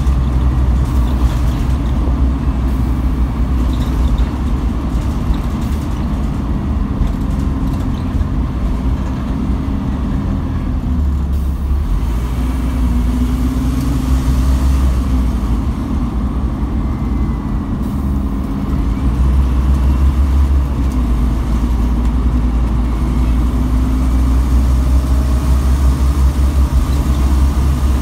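Scania N230UB OmniCity bus's five-cylinder diesel engine and road noise heard from inside the saloon, a deep steady rumble. The rumble eases and the engine note shifts through the middle, then grows louder again about two-thirds of the way in as the bus picks up.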